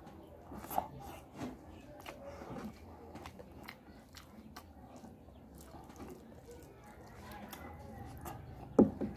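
Eating rice and fish by hand: close mouth sounds of chewing and biting, with scattered small wet clicks and smacks. A louder mouth sound comes near the end as a handful goes into the mouth.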